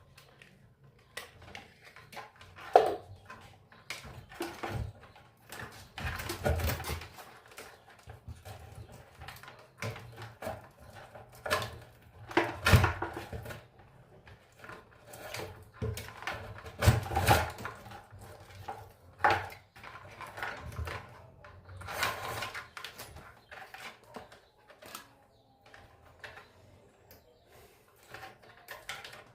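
Irregular knocks, clatters and scraping from hands and tools working inside an opened loudspeaker cabinet while its old wiring is pulled out, with several sharper bangs spread through.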